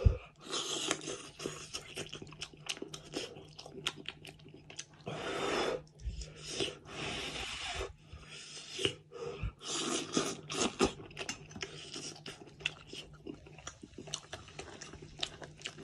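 A person eating cooked lamb's head meat by hand, close to the microphone: chewing and crunching, with many short sharp clicks as the meat is pulled apart.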